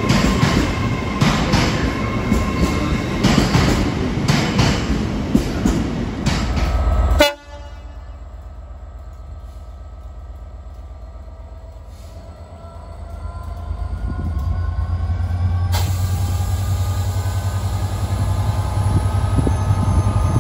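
A GWR passenger train running past along the platform, with a steady hum and regular clicks of wheels over rail joints. About seven seconds in it cuts off suddenly. Then a Transport for Wales diesel-hauled train approaches, its low engine rumble growing steadily louder, with a faint rising whine.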